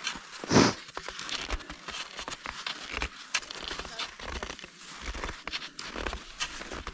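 Cross-country skis and poles on snow: an irregular run of crunching and scraping as the skier glides and plants her poles, with one louder brief rush of noise about half a second in.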